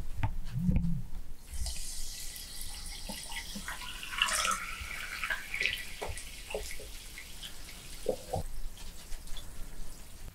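Carbonated sparkling water poured from a plastic bottle into a glass packed with jelly candies, splashing and fizzing for about seven seconds. The pour begins after a dull thump at the start.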